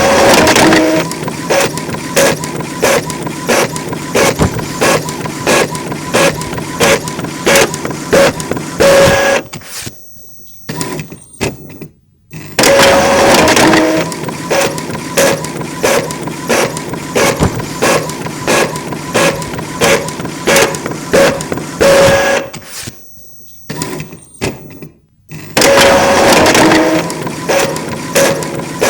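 A printer running through a print job: a steady mechanical whine and hum with regular clicks about once a second as the head and paper step along. The same recording plays three times with short gaps, amplified to the point of distortion and soaked in added reverb.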